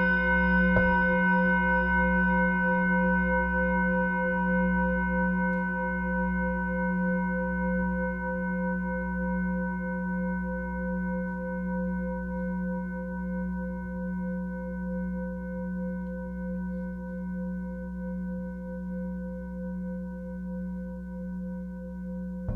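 Ringing bell-like tones, like a singing bowl, with a low wavering hum under a few higher overtones. They are struck about a second in, fade slowly, and are struck again at the very end.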